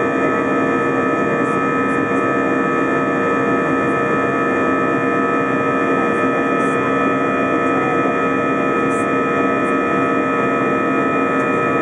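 Airbus A320 jet engine and airflow heard inside the cabin during the climb-out after takeoff: a loud, steady drone of several held hum pitches over a rushing roar.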